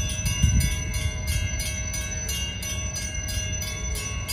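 Railroad grade-crossing warning bells ringing with rapid, even strokes while the crossing signals flash. A low rumble runs underneath, with a low thump about half a second in.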